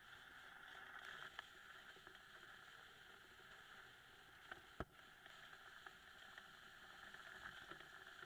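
Near silence: a steady faint hiss, with a soft click a little over a second in and two sharper clicks just past the middle, like an inspection camera knocking lightly inside a dryer vent duct.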